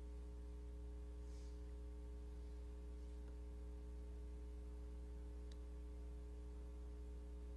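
Steady low electrical mains hum with a few faint steady tones above it, with a single faint click about five and a half seconds in.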